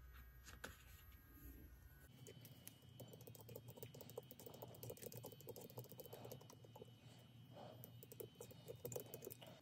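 Faint, quick scratching and light ticking from scrubbing clean the commutator of a small model-locomotive motor by hand.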